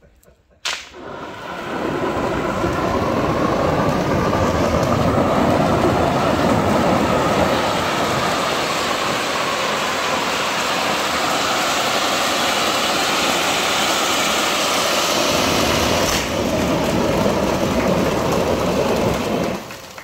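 A row of ground firework fountains (gerbs) lit together: a sharp pop a little under a second in, then a loud, steady hissing rush of spraying sparks that stops shortly before the end as the fountains burn out.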